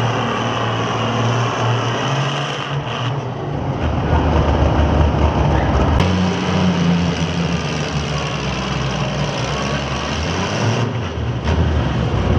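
Antique farm tractor engine running hard under load, pulling a weight-transfer sled down a dirt pulling track. The engine note shifts about halfway through.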